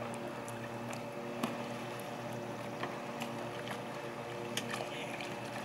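A steady low mechanical hum with scattered light knocks and clicks.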